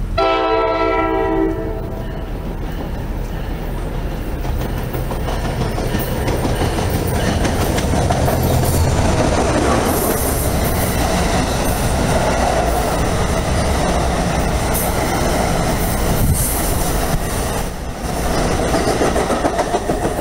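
An NJ Transit MultiLevel commuter train sounds one short chord blast on its horn as it arrives, then passes close by along the platform with a steady, loud run of wheels and cars on the rails.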